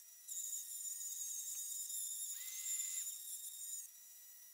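Dremel rotary tool on a homemade CNC router running at high speed as its bit mills an outline into a chipboard panel: a steady, high-pitched whine that drops in level about four seconds in.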